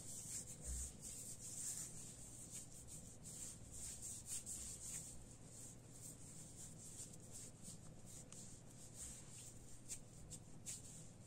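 Hands rubbing moisturising cream into a bare foot: faint, irregular skin-on-skin rubbing and swishing, with a steady low hum underneath.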